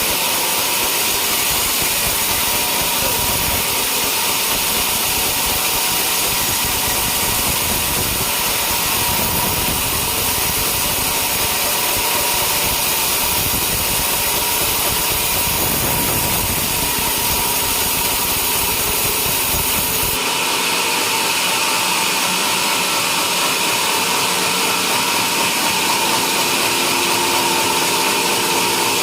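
Homemade sawmill running and sawing through a coconut palm log, a steady, loud mix of motor and blade noise. The low rumble drops out abruptly about two-thirds of the way through.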